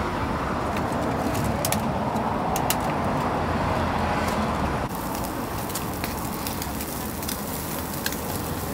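Fish grilling over charcoal: a steady sizzle broken by many sharp crackles and pops, over a low steady hum. The sound steps down a little about five seconds in.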